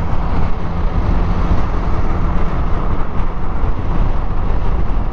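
The single-cylinder engine of a Yamaha NMAX scooter running as it rides in traffic, heard as a loud, steady rumble mixed with road and wind noise on the onboard microphone.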